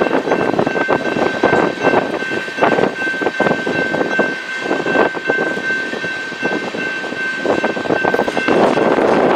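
Train cars rolling past, wheels clacking irregularly over the rail joints with a steady high whine running through. Near the end the clacking gives way to an even rush.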